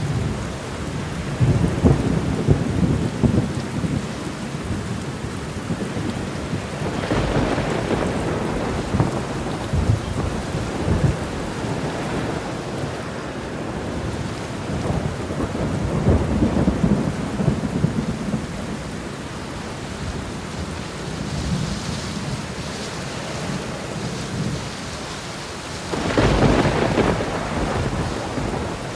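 Thunderstorm: steady rain under repeated rolling thunder, with louder rumbles about a second in, around 7 seconds, around 16 seconds and a sharper, brighter crack near the end.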